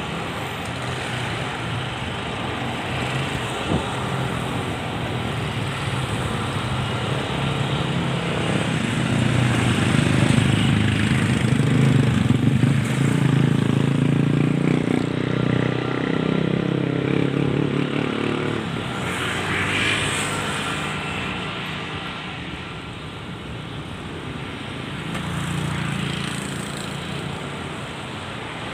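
Airplane engines humming, swelling to their loudest around the middle and then fading as the aircraft passes.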